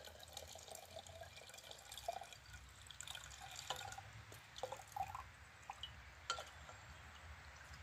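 Kombucha poured in a thin stream from a glass bottle into a glass jar: faint trickling and dripping, with a few light clicks.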